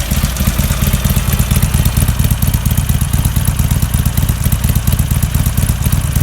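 Harley-Davidson Iron 883's air-cooled V-twin idling steadily through its stock exhaust, an even pulsing beat that stays at the same pace. It sounds nice, but still nicely quiet, as the original exhaust leaves it.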